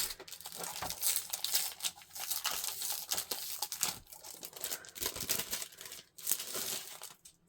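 Packaging being handled, crinkling and tearing in quick irregular crackles as it is pulled open, dying away near the end.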